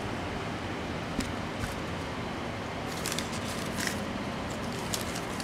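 Cardboard shoebox being opened and tissue paper handled: a few faint crinkles and soft crackles over a steady hiss.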